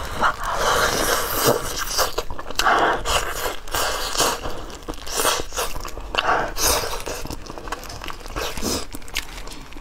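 Close-up eating sounds: biting into and chewing braised pig's trotter, soft skin and meat pulled from the bone in irregular wet bites.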